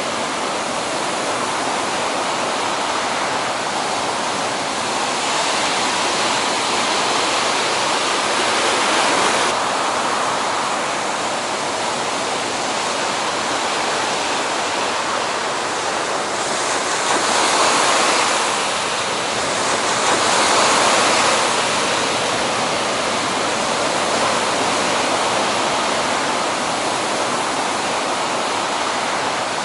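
Roar of large ocean waves breaking, a steady rushing of whitewater that swells louder several times and drops abruptly a little before ten seconds in.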